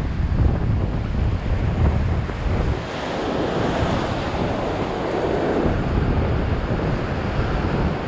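Surf washing and foaming around a rock ledge, with wind buffeting the microphone. About three seconds in, the low wind rumble eases and the hiss of the foaming water comes forward.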